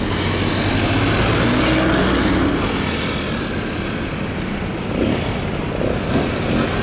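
Road traffic: cars driving past close by, with a steady rumble of engine and tyre noise.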